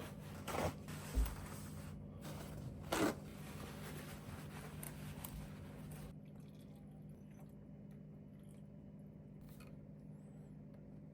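Hands handling things at close range: rustling and scraping with a few short knocks over the first several seconds, then it goes quiet, leaving only a steady low hum.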